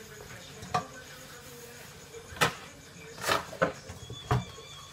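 Dishes knocking and clinking together as they are hand-washed at a sink: about five sharp clinks spread out, the loudest about two and a half seconds in.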